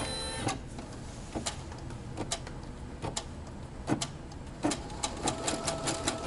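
Brother embroidery sewing machine starting an embroidery run: a short beep as Start is pressed, then sharp mechanical clicks about once a second that come faster after about five seconds in, with a steady motor hum joining in.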